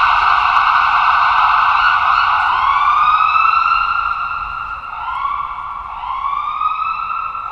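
Ambulance siren, electronic: a fast-cycling tone that switches about two and a half seconds in to a series of rising sweeps, each climbing and then levelling off.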